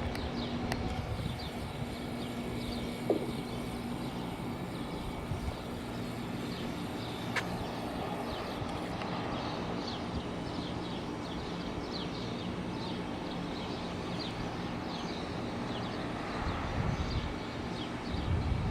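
Outdoor ambience: a steady traffic-like rumble, with a faint steady tone that stops about four seconds in. From about halfway on, many short high chirps, like small birds.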